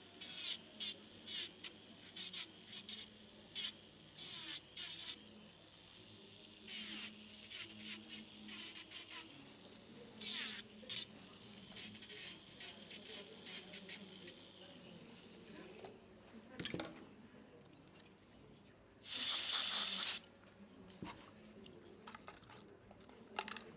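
Dental instruments at work on a tooth: many small clicks and scrapes over a faint steady high whine. About nineteen seconds in comes a loud, even hiss of compressed air lasting about a second, typical of a dental air syringe drying the tooth.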